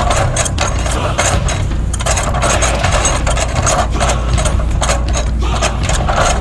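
A heavy machine's engine running steadily, with irregular knocks and cracks over it.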